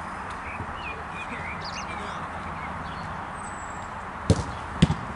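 Two sharp thuds of a football being struck, about half a second apart near the end, over a steady outdoor background hiss with faint high bird chirps early on.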